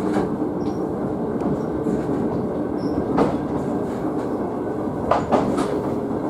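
Sakamoto Cable funicular car running downhill, heard from inside the car as a steady rumble of its wheels on the rails. A sharp click comes about three seconds in and two more near the end.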